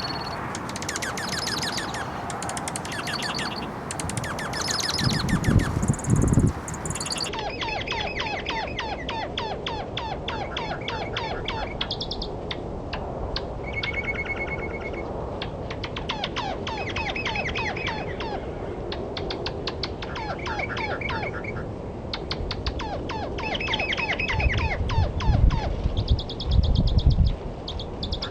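Bird calls played slowed down: dense, rapidly repeated chirps and short whistled notes, switching abruptly to a different recording about seven seconds in. Low rumbling thumps come twice, the loudest sounds, once before the switch and again near the end.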